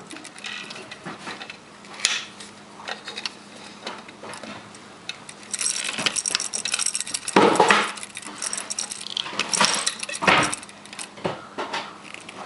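Electrical cable and small hand tools being worked at close range while wiring a plug: metal clicks, clinks and rustling, with louder spells about six to eight seconds in and again around ten seconds.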